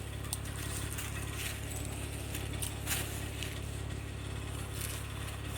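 Vehicle engine idling steadily, with scattered sharp clicks and snaps over it.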